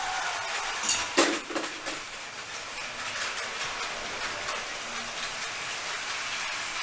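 Battery-powered Plarail toy trains running on plastic track: a steady whir and rattle from their small motors and gears, with faint ticking over the track joints. Two sharp clicks about a second in.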